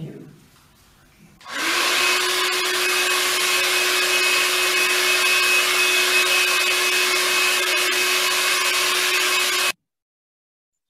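iTeraCare terahertz blower running: a steady rush of blown air with a constant low motor hum and a faint high whine. It starts about a second and a half in and cuts off abruptly near the end.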